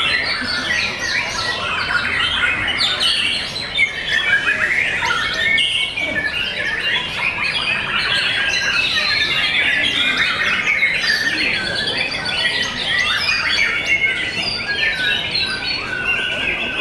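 White-rumped shamas singing, several at once: a dense, unbroken run of quick whistled phrases, slurred notes and chatter.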